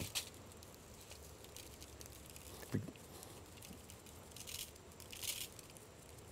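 Dry rub shaken from a shaker bottle onto fish steaks on a foil-lined tray, the granules pattering in a few faint short bursts, with a soft knock about three seconds in.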